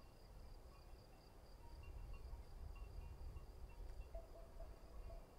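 Faint outdoor ambience: a steady high-pitched chirring of insects such as crickets or grasshoppers, with a low rumble of wind on the microphone.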